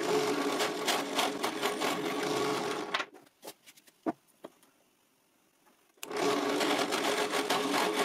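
Small low-power drill press running, drilling out the centre holes of plywood circles with a 10 mm twist bit. It runs for about three seconds, stops for about three seconds with a few light knocks, then runs again near the end.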